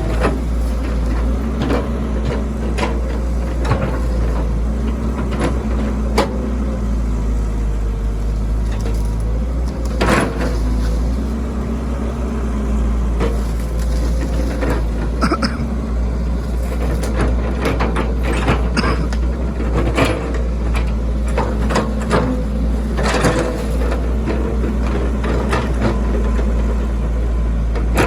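Excavator diesel engine running steadily, its pitch rising and falling as it works, with frequent clanks and knocks from the bucket and arm as it digs.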